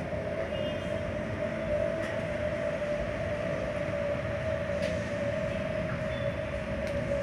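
Steady machine hum holding one constant pitch over a low rumble, with a couple of faint clicks in the second half.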